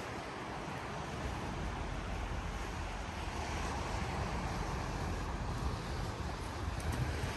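Wind buffeting the microphone, a fluctuating low rumble over a steady rushing background.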